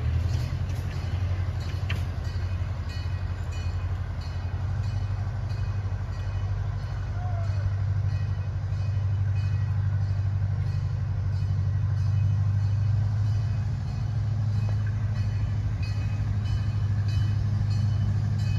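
Steady low engine drone of a miniature zoo-railroad locomotive (Chance Rides CP Huntington replica) running on the track, growing a little louder around the middle.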